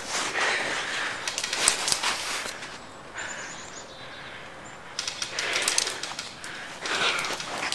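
Close rustling and crackling, like someone moving through brush, with many small clicks, quieter for a couple of seconds in the middle. A faint, short high chirp, like a bird's, comes about three seconds in.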